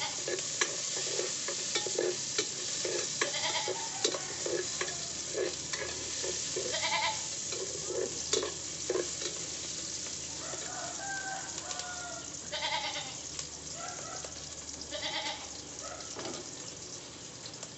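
Ginger and other aromatics sautéing in a little oil in a cooking pot, sizzling, while a ladle stirs and scrapes the pot about twice a second through the first half. Several animal calls sound in the background.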